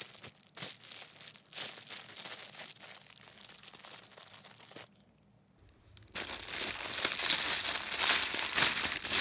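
Plastic packaging crinkling as it is handled. It is faint and sparse at first, stops for about a second around five seconds in, then comes back louder and denser.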